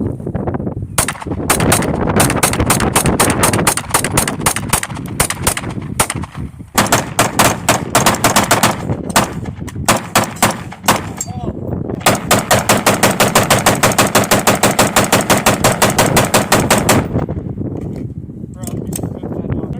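Rapid gunfire: several long strings of shots fired in quick succession, the longest and most even string lasting about five seconds at a fast steady pace around the middle, then a few scattered single shots near the end.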